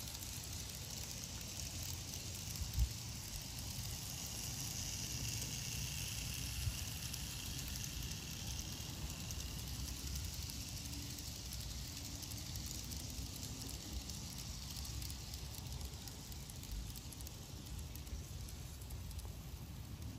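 Steady hissing outdoor background noise over a low rumble, with a single short knock about three seconds in.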